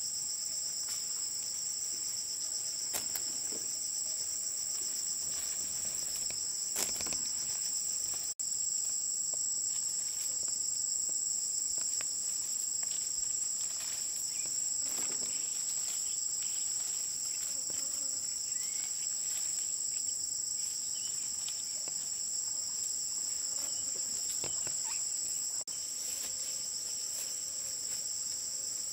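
A steady, high-pitched chorus of insects that runs without a break, with a few faint taps now and then.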